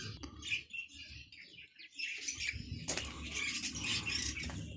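Many small birds chirping together, sparse at first and then a dense, overlapping chatter of high chirps from about halfway through.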